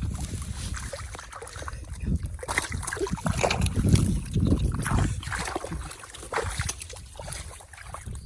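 Shallow water sloshing and splashing in irregular strokes, with low thuds underneath.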